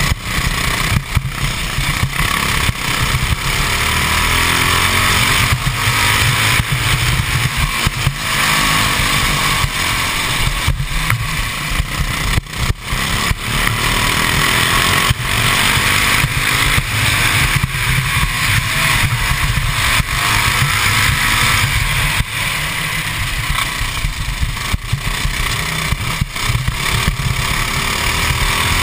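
Modified 196cc GX200-type single-cylinder four-stroke kart engine at racing speed. It revs up and drops back again and again, its pitch rising and falling lap after lap through the corners and straights.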